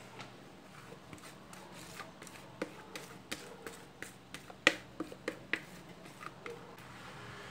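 Sponge cake batter being poured from a bowl into an aluminium baking pan, with light irregular clicks and taps, about two or three a second, and one sharper tap about four and a half seconds in.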